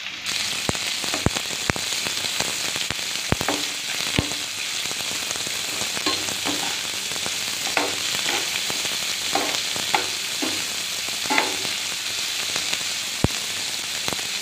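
Chopped onion, ginger and garlic sizzling in hot oil in a nonstick frying pan, with a steady hiss. A spatula stirs them, giving several sharp taps against the pan in the first few seconds and one near the end, and scraping strokes in between.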